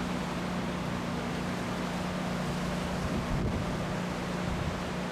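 Gusty wind buffeting the microphone in a steady rumbling rush, with a steady low hum underneath.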